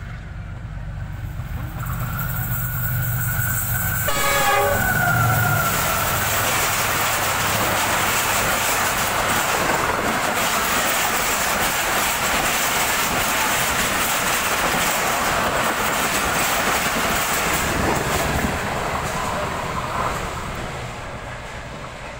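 GE diesel locomotive passing through at high speed: its horn sounds on the approach and drops in pitch as it goes by about five seconds in. The coaches' wheels then rush and rattle past on the rails for about thirteen seconds before the sound fades.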